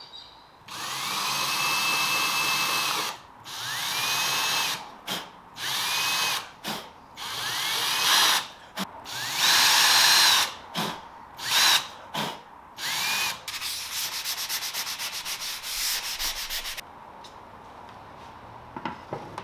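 Ryobi cordless drill-driver running in repeated bursts as it drills pilot holes and drives screws into fibreboard, each burst opening with a rising whine as the motor spins up, the last few short. Then a rapid even clicking for about three seconds.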